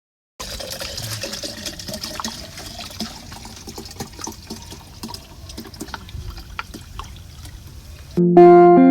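Palm wine pouring and splashing into a container, with many small crackling clicks and a faint tone rising over the first seconds as it fills. Loud guitar music comes in near the end.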